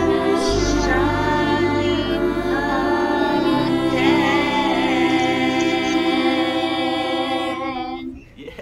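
A large choir with instruments holding a long closing chord, which dies away near the end.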